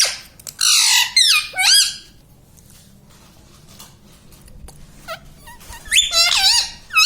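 Indian ringneck parrot giving high-pitched, sharply gliding squawks in two bouts, the first about half a second in and the second near the end, with a quiet stretch in between.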